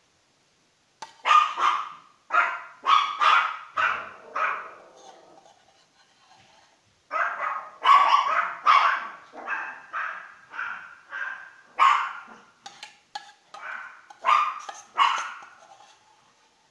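Dog barking over and over in quick runs: a string of barks from about a second in, a short pause, then a longer string that stops just before the end.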